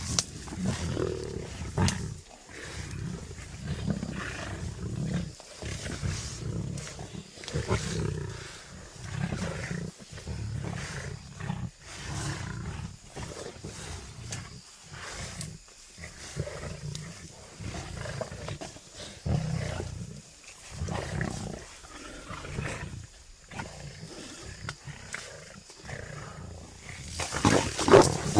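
Angolan lion roaring: a long series of deep, rhythmic grunting calls with short breaks between them, building to the loudest calls near the end.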